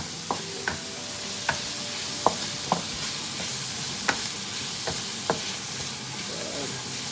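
Rice stick noodles sizzling in a hot pan as they are stir-fried, with the utensil clacking against the pan about eight times at uneven intervals.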